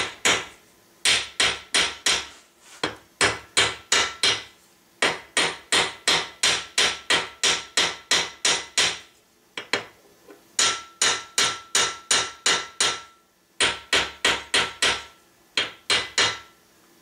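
Hammer striking the head of a modern cut nail clamped in a steel bench vise, in quick runs of metal-on-metal blows about four or five a second, broken by short pauses, with a faint ring under some runs. The nail's head is being hammered out at the edges into an 18th-century-style pyramid head.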